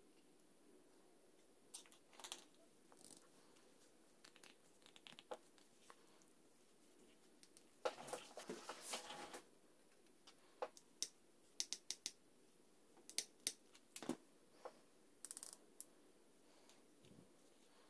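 Small plywood parts and a dowel being handled and fitted together by hand, giving scattered light clicks and taps. About eight seconds in there is a rubbing, scraping sound that lasts about a second and a half.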